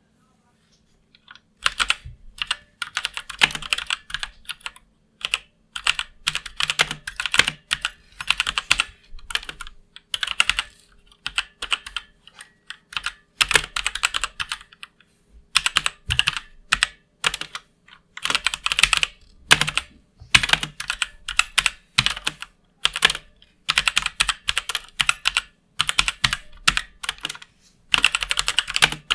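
Typing on a MeToo Zero mechanical keyboard with Outemu Red linear switches: quick runs of keystrokes lasting a second or two, separated by short pauses. The typing starts about a second and a half in.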